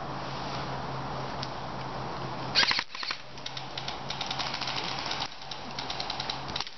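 Airsoft guns firing across the field: a short burst of sharp cracks about two and a half seconds in, then rapid clicking shots in two runs, over steady outdoor noise.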